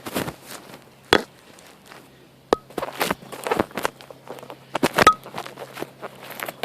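Irregular footsteps with sharp crunching steps, a faint steady low hum beneath them.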